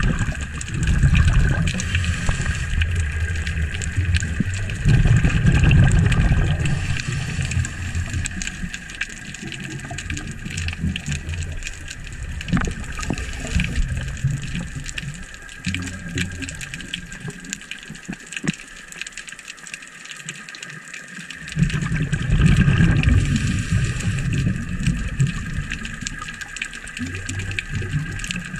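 Muffled underwater sound picked up by a camera in its waterproof housing: low rushing surges of moving water, strongest about a second in, around a fifth of the way through and again about three-quarters through, over a steady faint hum.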